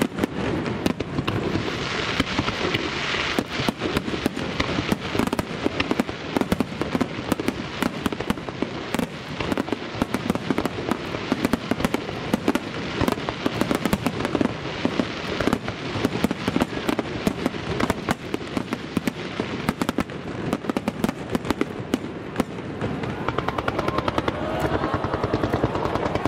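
Aerial fireworks fired as a star mine, a rapid-fire barrage, with shell bursts and crackling following one another in quick succession without a break.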